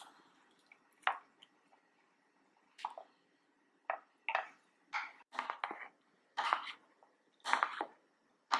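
Wooden spoon stirring pumpkin pieces in coconut milk in a saucepan to dissolve coconut sugar: short wet swishes and scrapes against the pot, one or two a second, coming closer together in the second half.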